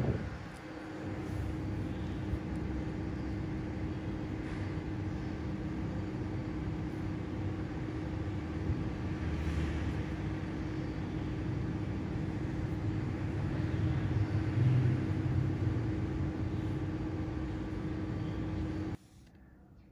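Steady low rumble of background noise with a constant hum, cutting off suddenly about a second before the end.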